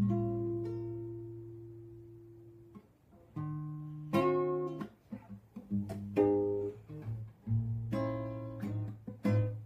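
Classical nylon-string acoustic guitar played solo. A chord is strummed at the start and left to ring and fade for nearly three seconds, then a series of shorter strummed chords and plucked notes follows.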